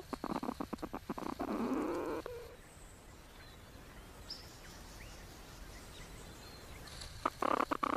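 A quick run of clicks and scraping for about two seconds, then quiet outdoor background with a few faint bird chirps. A short burst of clicking comes near the end.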